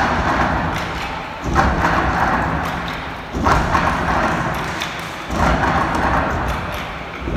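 Step team striking in unison on the stage: a loud thud about every two seconds, each followed by a long fading wash of sound.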